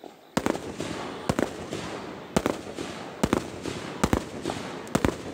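Aerial fireworks going off: a string of sharp bangs, roughly one a second and some in quick pairs, over a continuous hiss.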